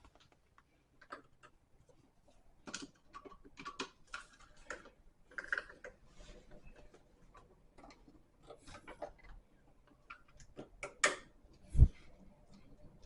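Screwdriver and wires working at a GFCI outlet's terminal screws while the outlet is freed from its wall box: irregular small clicks and scrapes, with one heavier knock near the end.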